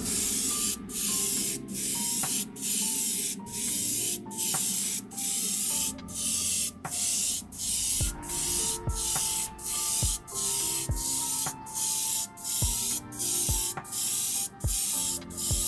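Sparmax airbrush spraying paint with a hiss of air that switches on and off in short bursts, a little more than one a second.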